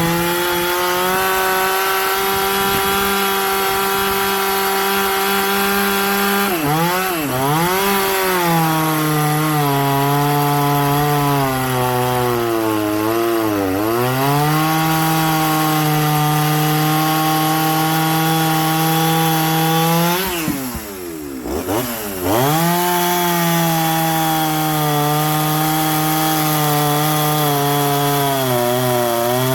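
Two-stroke chainsaw running at high revs while cutting wood. Its engine note dips under load several times, most deeply about twenty seconds in, when it briefly goes quieter, and climbs back each time.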